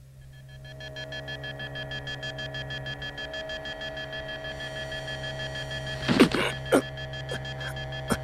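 Electronic sci-fi machine sound effect: a steady low hum under a high, rapidly pulsing electronic tone that fades in. From about six seconds in, several sudden loud sharp sounds cut across it.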